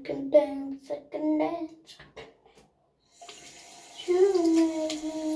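A tap is turned on about three seconds in and runs steadily, with a girl humming a held, wavering note over it.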